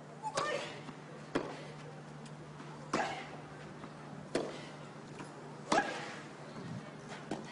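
Tennis ball struck by racquets: a serve about a third of a second in, then a rally, five crisp hits in all about a second and a half apart, alternating between the near and far ends of the court.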